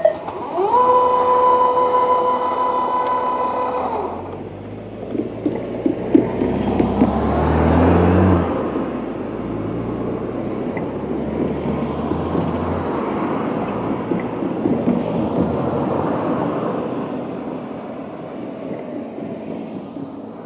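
The level-crossing bell stops right at the start, and the electric crossing barriers' motors whine as the gates rise: a tone that rises, holds steady for about three seconds and falls away. A vehicle then passes with a low engine rumble, loudest about eight seconds in, followed by a steady rushing noise that fades near the end.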